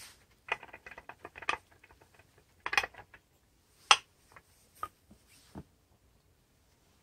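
Green plastic hamster wheels being handled and lifted out of a plastic bin cage, with plastic clicks and knocks and the rustle of paper bedding. Irregular clusters of clatter in the first three seconds, a single sharp click about four seconds in, then a few lighter knocks.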